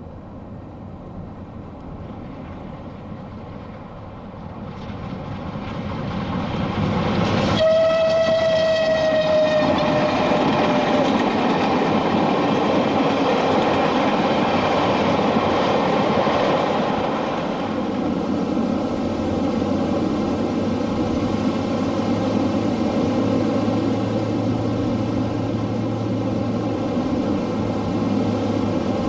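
Southern main-line steam locomotive approaching and passing, sounding its whistle once: a single note about three seconds long that dips slightly in pitch as it fades. The running noise of the train builds up before the whistle and carries on after it, easing a little later on.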